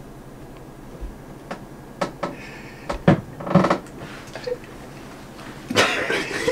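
A hushed pause with a few light knocks and taps of a plate and tableware on a table, and short murmurs about three seconds in. Near the end a man shouts 'Hurry up!'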